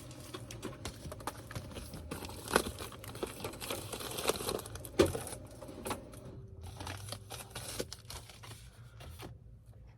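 Packaging crinkling and rustling as it is handled, with a dense run of small crackles and clicks and two sharper knocks, about two and a half and five seconds in.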